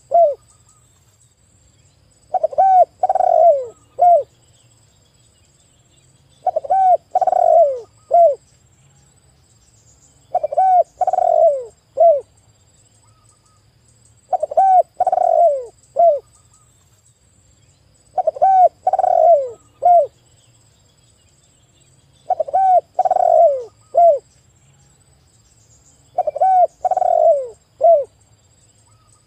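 Spotted dove cooing its call over and over: a phrase of about two seconds, a few notes ending in a short separate note, repeated about every four seconds, seven times.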